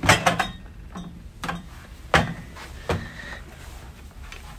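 Minibar fridge door being pulled open: a few separate knocks and clicks of the door and its fittings, the loudest about two seconds in.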